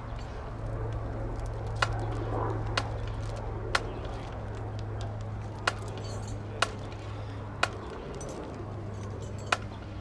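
Sharp single clicks about once a second, a marching band drummer's stick or rim click keeping time as the band marches, over a steady low hum.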